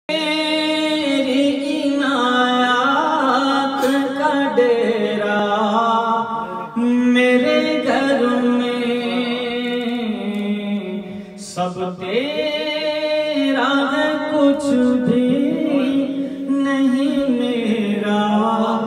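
A man sings an Urdu devotional song (naat) into a handheld microphone, in long melodic phrases with held notes.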